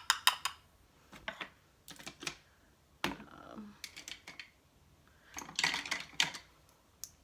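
Light clicks and taps in short scattered clusters, from a loose powder jar and its lid being handled.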